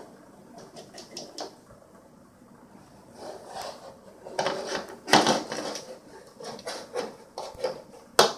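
Plastic valve from an FX5 aquarium canister filter knocking and scraping on a laminate floor as a cat paws, rolls against and mouths it: irregular clicks and short scrapes, the loudest clatter about five seconds in and another sharp knock near the end.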